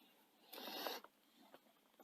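A short scraping burst about half a second in, lasting about half a second, from a screw being driven into a laptop's plastic back cover.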